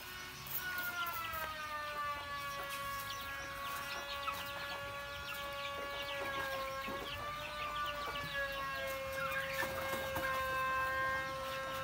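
Young chickens clucking and peeping while they peck at chopped greens, with many short calls. Under them a long steady whining tone sets in about half a second in and holds, wavering slightly midway.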